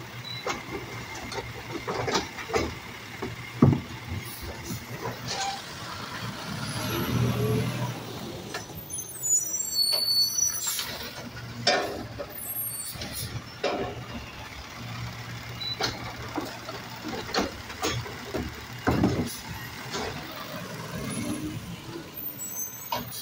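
Automated side-loader garbage truck at work: the diesel engine runs steadily while the hydraulic arm lifts and empties trash carts, with repeated metal clanks and bangs as carts are gripped, shaken out and set down. Hisses of air come about nine to thirteen seconds in.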